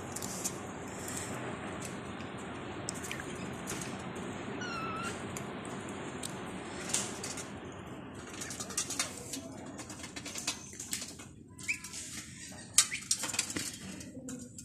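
Muscovy ducks pecking grain off concrete and a metal tray: a quick run of sharp taps and clicks through the second half. There are a few short animal calls, one of them meow-like about five seconds in, over a steady background hiss.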